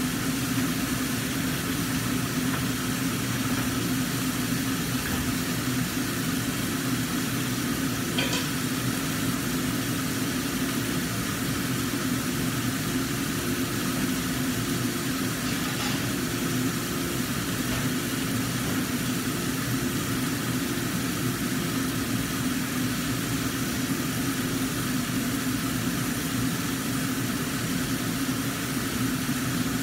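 Mackerel frying in a covered wok, a steady sizzle, under the steady hum of a kitchen range hood's exhaust fan.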